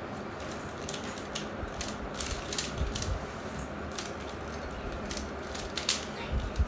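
Three plastic Pyraminx puzzles being twisted quickly, their layers turning with a stream of quick, irregular clicks.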